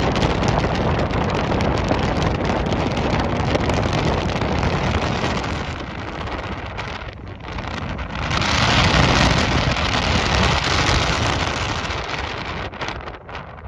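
Wind buffeting the microphone: a steady, loud rushing noise that swells and brightens about eight seconds in, then eases near the end.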